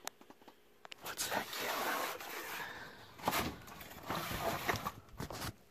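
Close handling noise: rustling, with several sharp knocks as hard objects are moved about.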